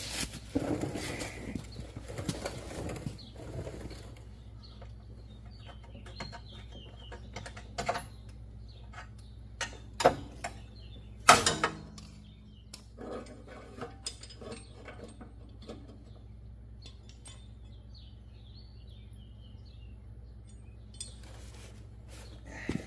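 Scattered metallic clinks, taps and knocks of hand tools working a deck pin and rod loose under a riding lawnmower, with a few louder sharp knocks near the middle. Birds chirp faintly.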